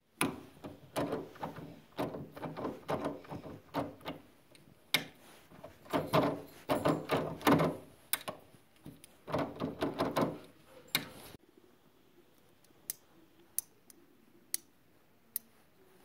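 Baldwin privacy lever lock being worked by hand: a run of metal clicks, rattles and knocks from the lever, latch and trim. After a drop in level, four sharp single clicks follow.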